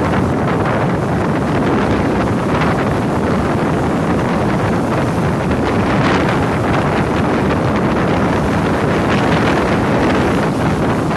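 Rough sea surf breaking and washing up a pebble beach, swelling every few seconds, under heavy wind buffeting on the microphone.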